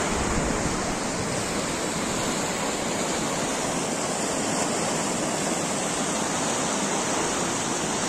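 Steady rushing of mountain water from a nearby stream or cascade, an even noise that does not change.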